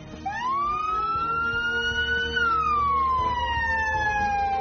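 Ambulance siren starting up in a slow wail: its pitch sweeps up for about two seconds, then slides slowly back down.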